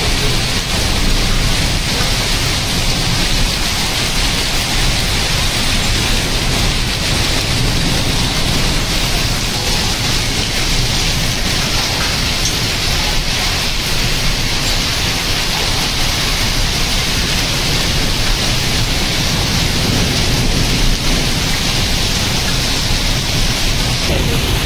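Heavy rain mixed with hailstones falling on a flat concrete rooftop and the water pooled on it, a steady loud hiss and patter.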